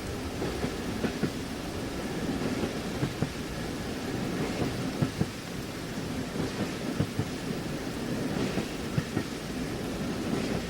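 Steady rumble of a passenger train rolling, heard inside a sleeping compartment, with the wheels clacking over rail joints in pairs about every two seconds, mixed with the hiss of rain.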